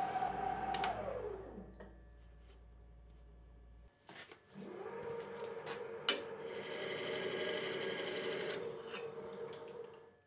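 Wood lathe motor spinning down with a falling whine. After a few clicks it starts up again and runs with a steady hum, which fades away near the end.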